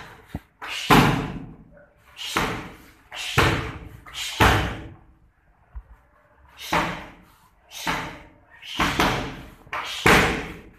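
Gloved punches and kicks landing on a coach's hand-held strike pads: about eight sharp smacks, in quick runs with a pause midway.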